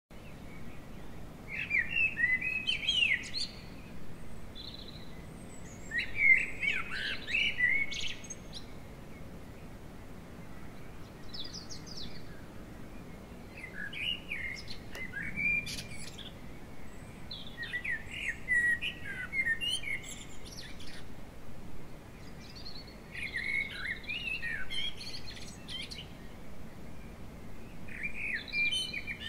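A songbird singing: short warbled phrases of about two seconds, repeated every few seconds, over a faint steady outdoor background.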